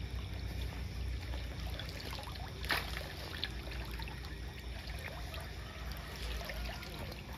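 Steady trickle of running water over a low steady hum, with one brief sharp noise nearly three seconds in.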